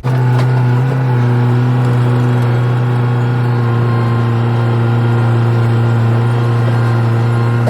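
Skid steer engine running at a steady speed: a loud, even drone that holds one pitch throughout.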